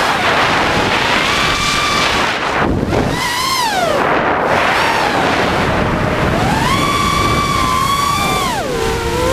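Brushless motors and propellers of an ImpulseRC Reverb FPV racing quadcopter whining in flight, the pitch rising and falling with the throttle and dropping briefly about three seconds in and again near the end. Wind rushes over the onboard camera's microphone throughout.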